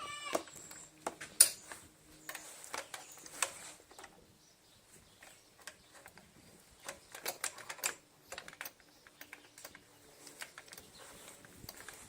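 Irregular clicks and taps of small handlebar parts being handled and fitted: a motorcycle throttle housing and grip being put back together. The loudest snap comes about a second and a half in.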